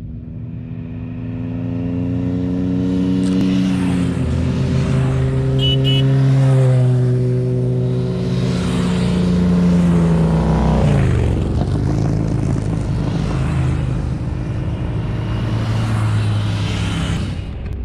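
Several motorcycles ride past one after another, their engines running loudly. Each engine's pitch drops sharply as it goes by.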